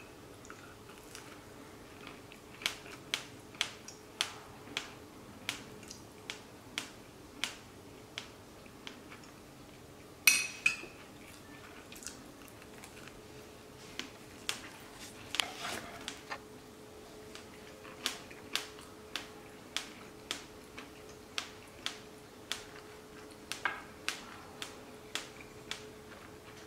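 A person chewing soft bread close to the microphone, with regular short mouth clicks about one and a half times a second. A louder clink of a knife or plate about ten seconds in, and a faint steady hum underneath.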